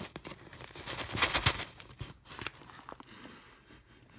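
A freeze-dried meal pouch crinkling as it is handled, in a few short rustling bursts, loudest about a second in, then quieter.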